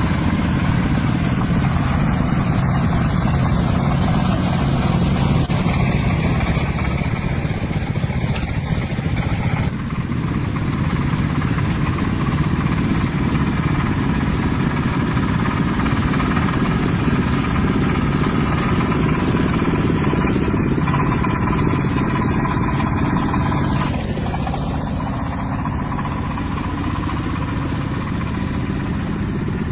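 Tractor engine running steadily, with a brief dip about ten seconds in and a slightly quieter stretch near the end.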